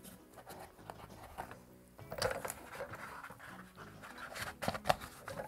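Hand-cranked chrome pasta machine, used as a printing press, being turned to squeeze a thick sandwich of craft foam, paper and inked plate through its rollers at a tightened pressure setting. It gives irregular clicks, knocks and rustles, busiest about two seconds in and again near the end.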